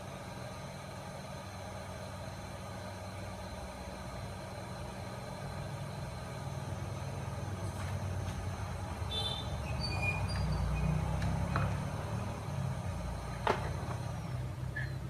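Hot air rework station blowing steadily, a low rushing rumble that swells a little partway through, as the solder is heated through the stencil to form new balls on an audio IC. A sharp tick sounds once near the end.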